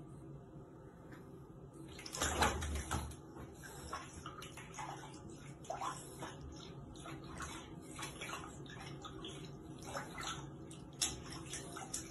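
Water splashing and sloshing in a plastic basin as a chihuahua is bathed by hand, with the loudest splashes about two seconds in and small splashes and trickles every second or so after.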